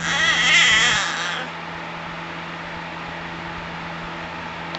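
A baby's high-pitched, wavering squealing scream lasting about a second and a half, followed by only a steady low hum.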